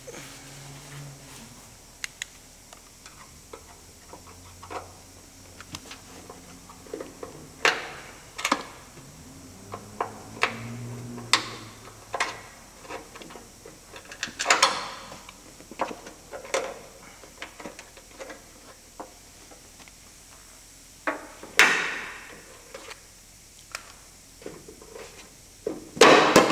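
Irregular clicks, taps and knocks of a flathead screwdriver prying the metal retaining clips off a bonnet gas strut's mounts, and of the strut being worked free. A few louder knocks come about a third of the way in, at the middle, and near the end.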